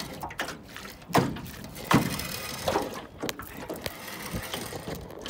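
A few sharp knocks and clunks, about four in as many seconds, as an anchor is hauled up out of the water into a rowboat.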